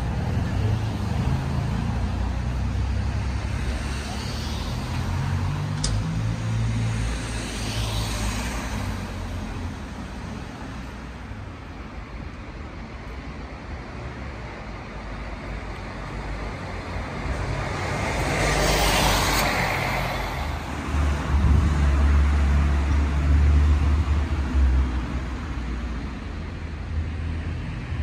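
Road traffic on a town street: cars passing one after another, the nearest and loudest going by about two-thirds of the way through, over a steady low rumble.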